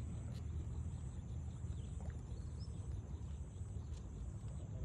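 Steady low rumble of open-air background noise, with a few faint clicks.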